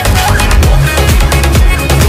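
Loud, upbeat Bollywood dance track with an electronic beat and heavy bass, played as the Zumba workout music.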